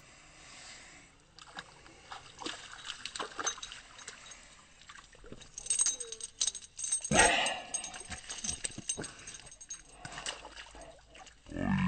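A dog wading and nosing about in shallow lake water at the shore: irregular small splashes and sloshing, with a louder burst a little past the middle.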